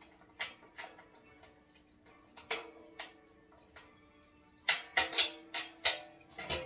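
Small bolts and nuts clicking and tapping against the plastic Shop-Vac tank and handle as they are fitted by hand: scattered sharp clicks, with a quick run of them near the end.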